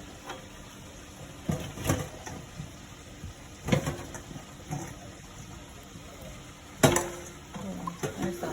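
Kitchen clatter: a few sharp knocks and clinks of containers and utensils against a mixing bowl, the loudest about seven seconds in.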